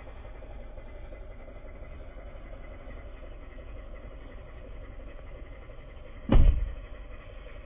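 Small flatbed truck idling with a steady low hum, and its cab door slammed shut once about six seconds in with a loud thud.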